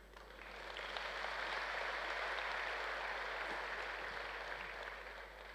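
Audience applauding, swelling over the first second, holding steady, then fading away near the end.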